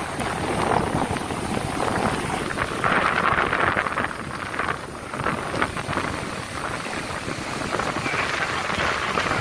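Surf breaking and washing over the shallows, with wind buffeting the microphone; the wash swells louder about three seconds in and again near the end.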